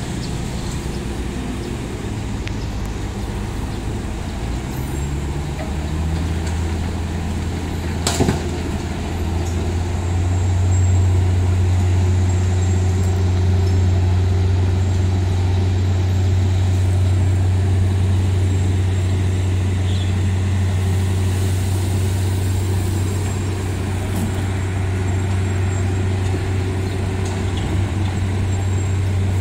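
Heavy diesel engine of a Wirtgen cold milling machine running under load with a steady low drone that grows louder about ten seconds in. A single sharp knock comes about eight seconds in.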